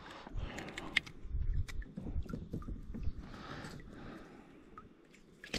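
Scattered small clicks, taps and soft rustles of a just-caught redfin perch and its lure being handled over a kayak.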